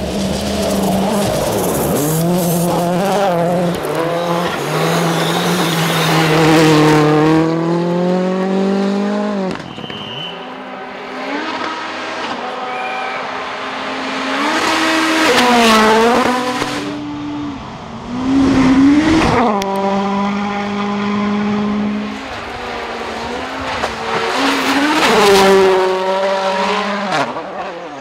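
Rally cars flat out on a gravel special stage, one pass after another, each engine note climbing hard and dropping sharply at each gear change or lift.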